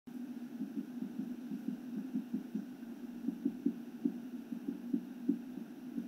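A woodpecker pecking hard into a tree trunk: a fast, uneven run of dull wooden knocks, several a second, some stronger than others.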